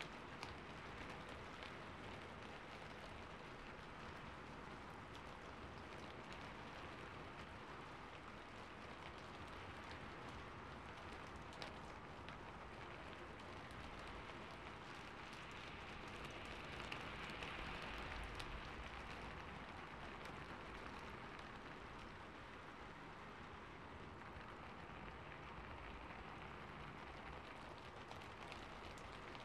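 Steady rain falling on a rooftop, with many small individual drop ticks in an even patter, swelling slightly about halfway through.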